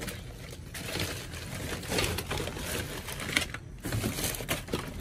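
Rustling, crinkling and light clattering of plastic-fronted cardboard packages and boxes being picked up and shuffled by hand.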